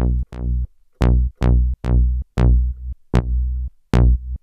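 A u-he Diva software synthesizer, with a ladder filter, plays a repeating bass line: low pitched notes, about two a second, each starting bright and quickly turning dull as the filter closes. The filter feedback is turned up partway through to make the low end fatter.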